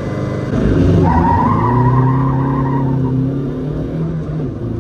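A car running, its engine note steady, with a wavering high squeal that joins about a second in and lasts about two seconds.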